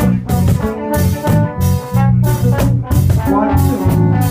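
Live band playing an instrumental reggae groove: a steady bass line under a regular beat, with a melody over the top.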